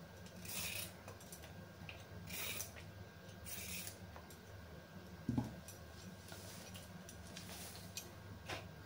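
Vegetable peeler scraping down a raw carrot in short strokes about once a second, peel strips dropping into a plastic bowl, followed by a single soft knock about five seconds in.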